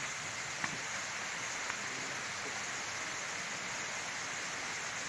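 Waterfall: a steady rush of falling water, an even hiss, with two faint clicks in the first two seconds.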